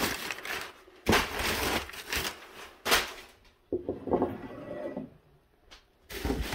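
Crinkling and rustling of brown kraft packing paper and cardboard box flaps being pushed aside by hand, in several irregular stretches, with a ceramic mug set down on a wooden table about halfway through.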